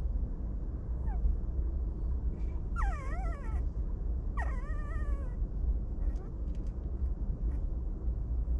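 A puppy whimpering: two short whines, about a second and a half apart, that waver and fall in pitch, with a fainter whine earlier, over a steady low rumble.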